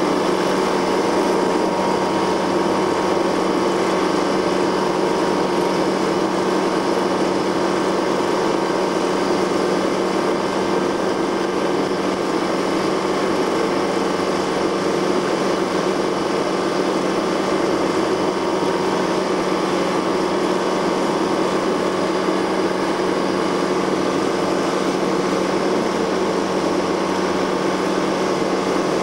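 A motorboat's engine running steadily at speed while towing a waterskier, a constant droning hum over the rush of water and wind.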